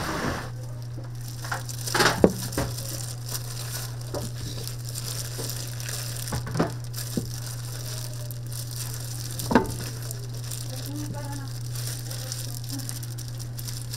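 Chicken frying in a vat of hot oil, a steady sizzle over a steady low hum. A few sharp knocks and clinks break in, the loudest about two seconds and nine and a half seconds in.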